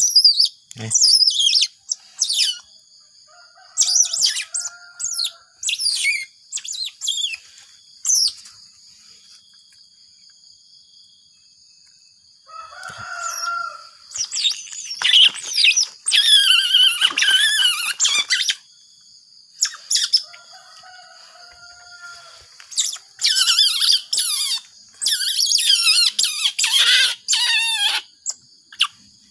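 Two-month-old Asian small-clawed otter pup giving repeated high-pitched chirps and squeals in bursts, with a few quieter seconds near the middle.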